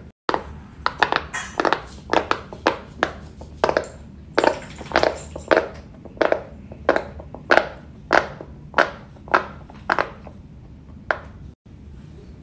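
Silicone pop-it fidget toy being pressed bubble by bubble: a steady run of short, sharp pops, about two to three a second.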